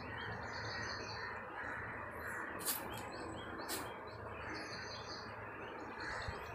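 Small birds chirping in the background, with two short sharp clicks about a second apart near the middle as a hose connector is fitted onto the pressure washer's brass pump inlet.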